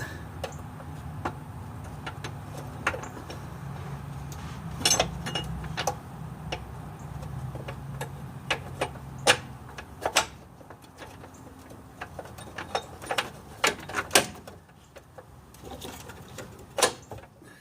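Scattered sharp metallic clicks and knocks of tools and steering parts being handled during the steering box installation, over a low steady hum that dies away about ten seconds in.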